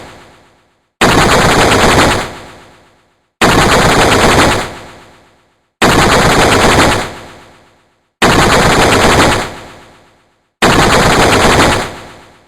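Sci-fi alien machine-gun sound effect: five short bursts of rapid fire, each about a second long and ending in a fading echo tail, repeating every couple of seconds.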